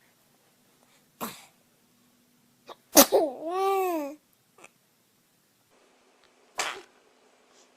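Three baby sneezes, short sharp bursts about a second in, at about three seconds and near six and a half seconds. The middle one is the loudest and runs straight into a brief baby vocal sound that rises and falls in pitch.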